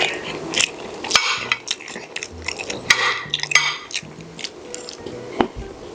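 Cutlery clinking and scraping on a plate during a meal: a string of irregular sharp clicks, the strongest about a second in, near three seconds and about five and a half seconds in.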